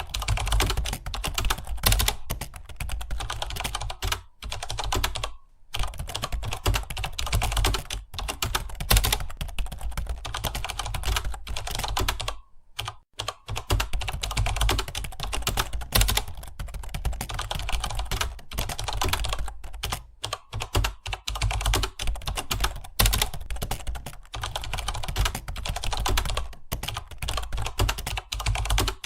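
Fast, continuous typing on a computer keyboard: a rapid run of key clicks with short breaks about four seconds in, at five and a half seconds, and near thirteen seconds.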